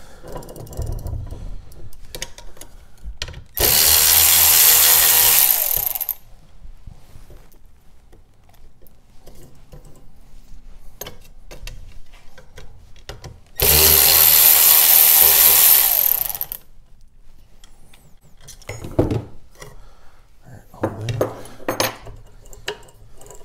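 Cordless power driver running in two steady bursts of about two and a half seconds each, about four and fourteen seconds in, spinning out the bolts that hold the sprocket to an electric dirt bike's rear-wheel freewheel. Light clinks and knocks of tools and parts come in between.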